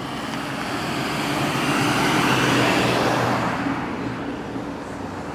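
Road traffic: a vehicle passes, its tyre and engine noise swelling to a peak about halfway through and then fading, over a steady low hum.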